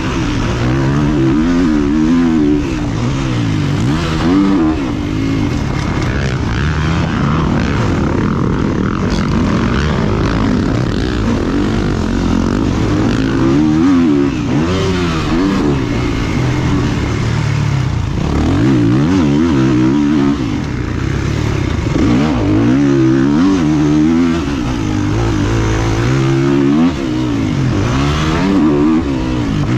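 Motocross bike engines revving up and down through the gears, rising and falling in pitch every second or two, with more than one bike's engine overlapping at times.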